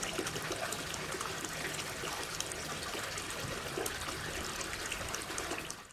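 Water trickling and splashing steadily from a free-flowing artesian well.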